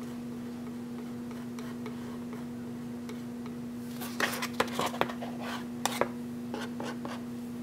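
Metal palette knife scraping and tapping on a paper palette as acrylic paint is picked up: a short run of sharp clicks and scrapes about halfway through, over a steady low hum.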